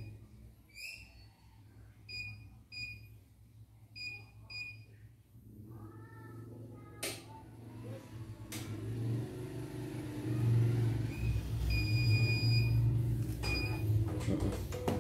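Yoko computerized embroidery machine's control panel giving short high beeps as its buttons are pressed: a quick run of six beeps in the first few seconds, then a longer beep and a short one near the end. Under it a low hum grows louder from about halfway, with a couple of sharp clicks.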